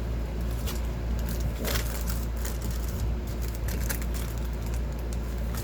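Scattered rustles and clicks from packaging being handled, over a steady low hum.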